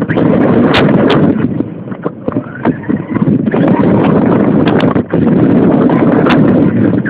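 Radio-controlled car driving, heard from a cellphone mounted on it: a loud, rough rumble of the wheels over the ground and wind on the microphone, with sharp knocks from bumps. The noise drops briefly twice, and a faint rising whine from the drivetrain is heard at about the middle.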